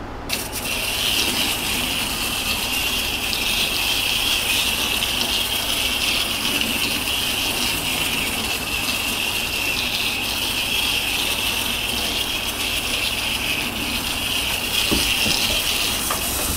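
Wind-up Capsule Plarail Thomas toy train running on plastic track: a steady whirring rattle of its small spring motor and wheels that starts just after the beginning and stops near the end.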